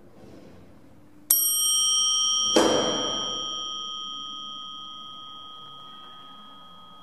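Elevator landing arrival bell: a metal bell rings steadily for about a second, then gives one last, louder strike and rings out slowly, fading over several seconds.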